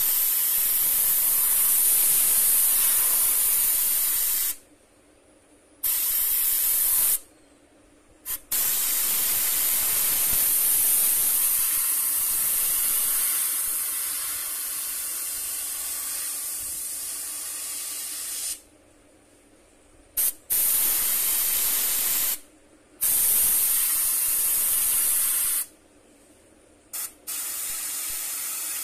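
Airbrush spraying paint: a steady hiss of compressed air that stops and starts again as the trigger is let go and pressed, in about six spells of one to ten seconds with short silent gaps between.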